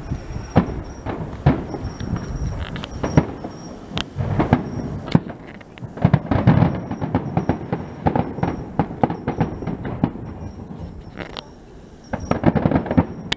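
Aerial firework shells bursting: a rapid, uneven run of bangs and pops, easing off briefly near the end before more bangs follow.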